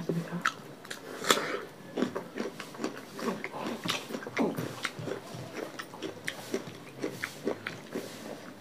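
Eating sounds of several people eating rice and fish curry by hand from steel plates: irregular wet chewing and lip-smacking clicks, a few every second, with no talk.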